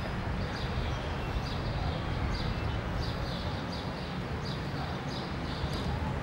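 Street ambience: a steady low rumble of city traffic, with a bird chirping repeatedly, two or three short high chirps a second.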